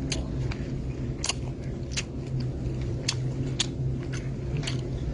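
A person eating: chewing with about half a dozen short, sharp mouth smacks or clicks at uneven intervals, over a steady low hum.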